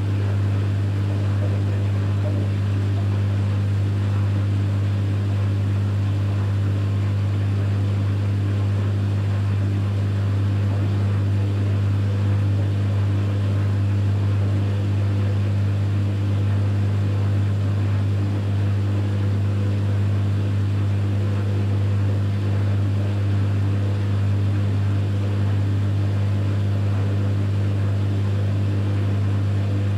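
Electrolux EWF 16589 W front-loading washing machine running on a 60 °C cotton programme, giving a steady low hum that does not change.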